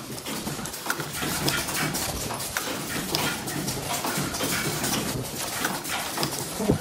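Mask-making machinery running: a dense, irregular clatter of clicks and knocks from the earloop welding machine and the machines around it, with a few short high tones and a sharper knock near the end.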